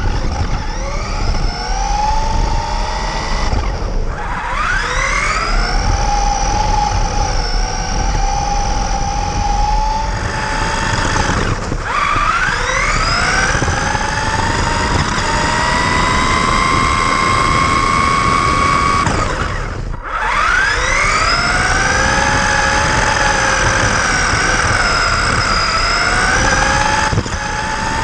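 Radio-controlled buggy's motor whining as the car is driven fast. The whine climbs in pitch as it accelerates, levels off, and breaks off briefly four times when the throttle is released, then climbs again.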